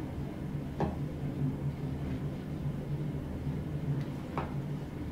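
A steady low hum, with two brief sharp clicks: one about a second in and one near the end.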